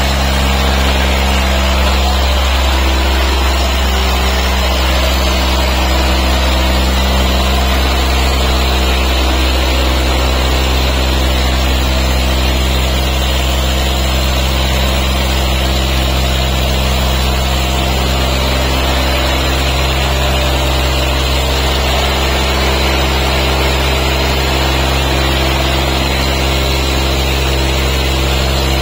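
Diesel tractor engines running hard together, a loud, steady deep drone with no change in pitch.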